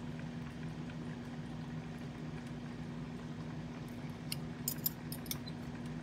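A metal fork clinking lightly against a ceramic plate a few times in the second half, as food is picked up, over a steady low background hum.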